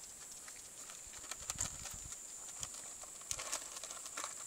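Pony chewing and crunching food: a scatter of small crunchy clicks with a few soft thumps.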